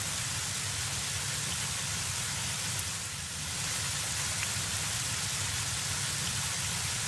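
Steady rain falling, an even hiss with a low rumble underneath and a few faint drop ticks.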